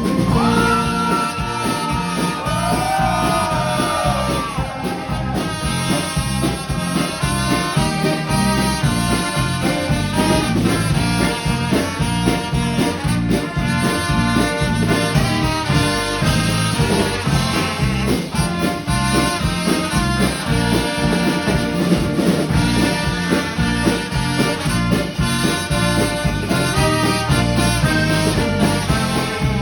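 Live band music with trumpets leading, playing an upbeat tune over a steady beat. A held trumpet note sounds near the start.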